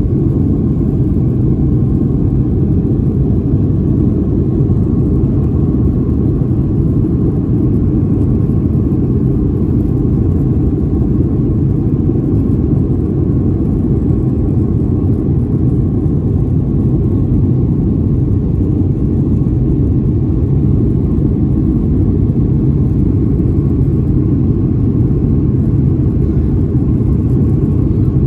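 Steady low rumble inside the cabin of a Boeing 737-900 in its climb after takeoff: the CFM56-7B engines at climb power mixed with airflow noise.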